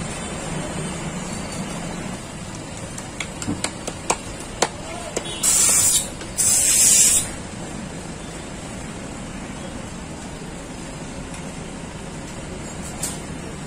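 Two loud bursts of hissing, each under a second and close together, a little past the middle, over a steady street background hum. A few sharp clicks come just before them.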